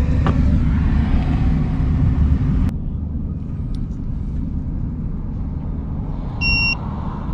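A vehicle engine idling with a steady low rumble, with a sharp click a little under three seconds in. Near the end comes a short high electronic beep.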